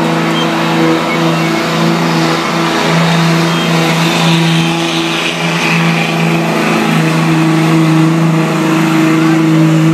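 Diesel 4x4 pickup truck's engine held at high revs under full load while it drags a weighted pulling sled, its pitch staying steady and loud.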